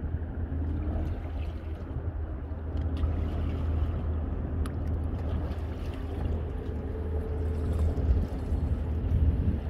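Steady low wind noise on the microphone over water washing along the hull of a sailboat under way, with a few faint clicks.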